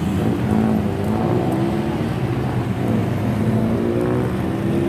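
Car engines running in street traffic, their pitch rising and falling as vehicles pull away.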